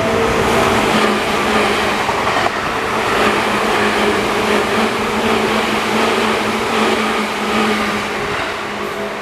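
Seibu Shinjuku Line train passing over a level crossing: a loud, steady rush of wheels and running gear that eases a little near the end. A repeating crossing warning bell sounds behind it.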